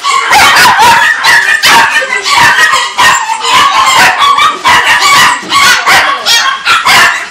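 Many caged small dogs barking and yipping at once, loud overlapping barks with no break between them.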